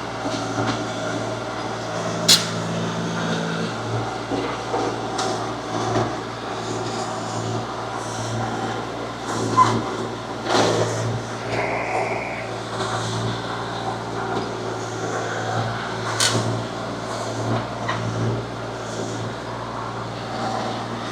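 A small earth-moving machine's engine running steadily, with a few sharp knocks while it works the ground.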